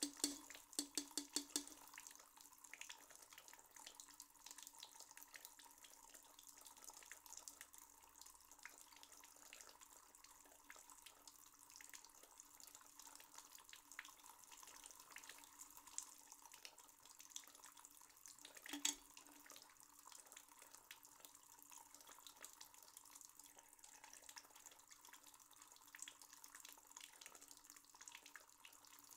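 Faint dripping water, like a tap dripping into a sink, with a quick run of drips in the first second or two and one louder drip about two-thirds of the way through.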